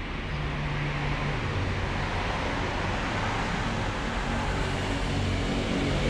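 Vehicle engine noise: a steady rushing hum that grows gradually louder.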